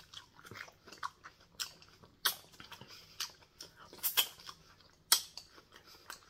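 A person chewing raw tomato close to the microphone: wet mouth smacks and clicks at irregular intervals, a few of them louder.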